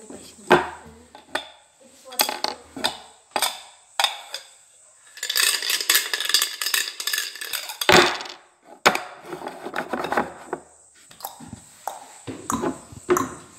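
Clicks and knocks of small objects being handled, with a stretch of rustling in the middle and one sharp knock about eight seconds in.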